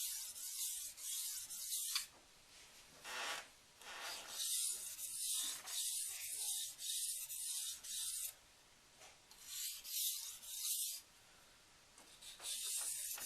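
An AEB-L steel knife edge (Richmond Artifex) is stroked back and forth on a Nubatama 1000-grit bamboo waterstone with light pressure. Each pass gives a hissing, rasping scrape, in runs broken by short pauses. These are finishing passes to even out the grind pattern.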